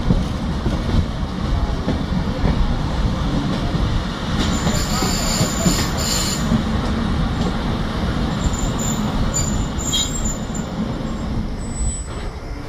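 Train moving on the track: a steady, heavy rumble, with a thin high wheel squeal twice in the middle.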